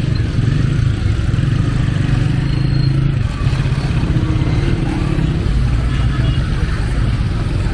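Dense road traffic up close, mostly small motorcycle and auto-rickshaw engines running, a loud, steady low rumble.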